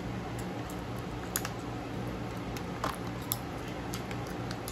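A few light clicks and taps from handling metal eyeshadow palettes, over a steady low hum.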